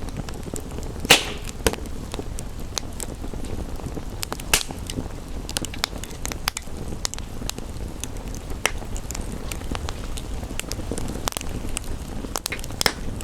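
Wood fire crackling, with frequent small snaps and a few sharper pops: one about a second in, one a few seconds later and one near the end. Beneath it runs a steady low rumble and hiss.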